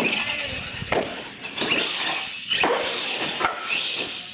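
R/C monster truck's motor whining, rising and falling in pitch with the throttle, with several knocks and clatters as the truck lands off the ramps and bounces on the concrete floor.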